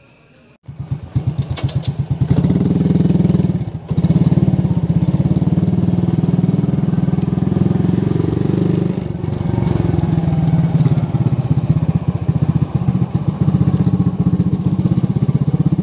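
Motorcycle engine running under way, a loud steady note with fast even pulses; it dips briefly about four seconds in and again near nine seconds.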